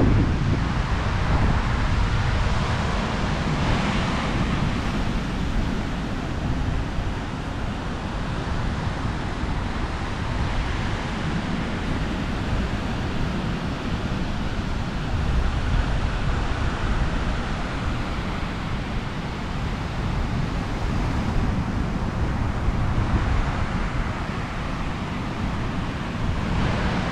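Wind buffeting the microphone: a steady, loud rush with ragged low rumbling.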